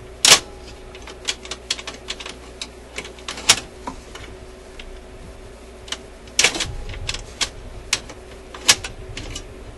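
Irregular metallic clicks and clacks from a record changer's control linkage being worked back and forth by hand. The On/Off/Reject control hangs up more and more as it moves along its travel. A few sharper clacks stand out among the lighter ticks.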